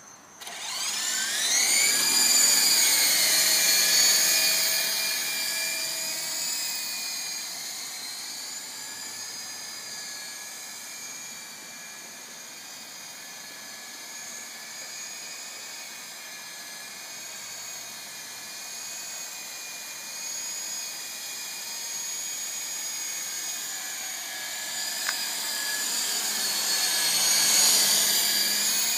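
Syma S33 large-scale coaxial RC helicopter's electric motors and rotors spooling up, the whine rising in pitch over the first two seconds as it lifts off, then a steady high whine in flight. It grows fainter as the helicopter moves away and louder again near the end as it comes back close.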